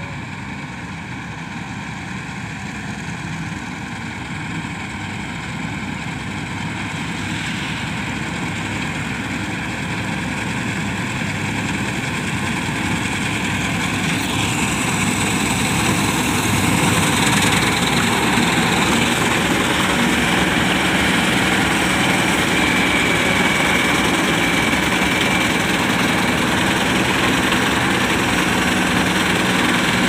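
Self-propelled combine harvester cutting a standing wheat crop, its engine and threshing machinery running steadily and growing louder as it comes closer, then holding level over the second half. A thin high whine from the machine joins in about halfway through.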